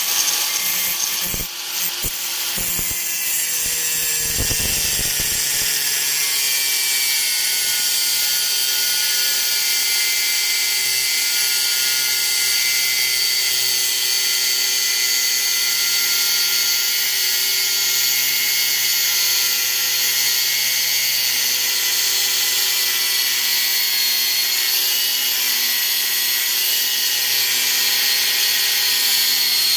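Handheld electric power tool running steadily with a high, even whine, after a few knocks and a brief dip in the first couple of seconds.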